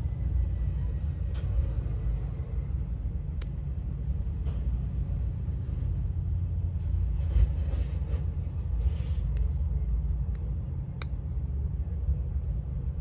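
Steady low background rumble, with a few small sharp clicks of metal tweezers and tools on phone parts as a plastic piece is pried off a smartphone screen assembly.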